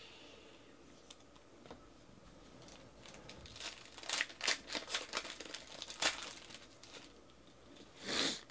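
A 2019 Panini XR Football card pack's shiny wrapper being torn open by hand: a run of crinkling tears from about three and a half to seven seconds in. Near the end comes one short, loud swish as the stack of cards is pulled out and handled.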